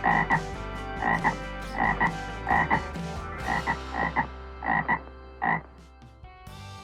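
American bullfrog calling: a run of about ten short, evenly spaced croaks, ending about a second before the end.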